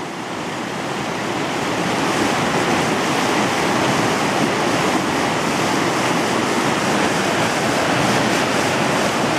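Whitewater river rapids rushing steadily, a little louder after the first couple of seconds.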